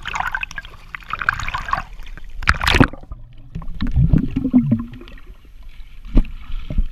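Water splashing and sloshing right at the microphone as the waterproof camera goes below the surface, then muffled underwater gurgling and bubbling. Sharp knocks about two and a half seconds in and again near the end.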